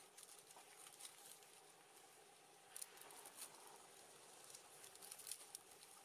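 Near silence, with scattered faint clicks and a faint steady hum.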